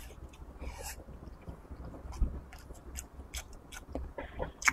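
Close-up chewing of a mouthful of rice and braised pork, with irregular wet clicks and smacks of the mouth.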